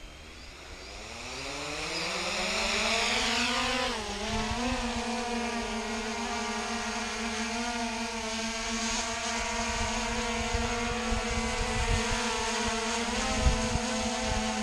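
Hubsan X4 quadcopter's electric motors spinning up with a rising whine as it lifts off, a brief dip in pitch about four seconds in, then a steady buzz of several tones as it hovers.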